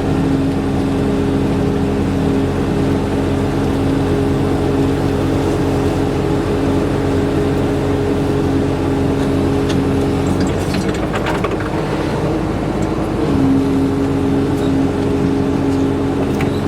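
Engine of a blade-equipped machine running steadily while its blade pushes dirt over a culvert. About ten seconds in, the steady engine tone breaks up for around three seconds with a few clicks, then settles back.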